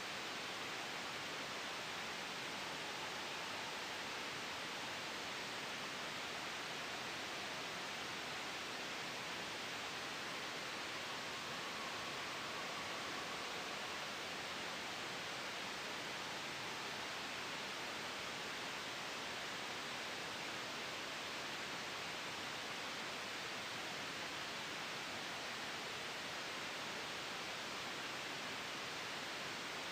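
Steady sleep white noise, a soft even hiss blended with a gentle wind ambience, with no changes.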